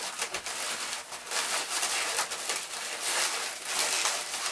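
Latex modelling balloons rubbing and squeaking against each other and against the hands as they are twisted and worked into shape, an irregular scratchy rubbing that swells and fades.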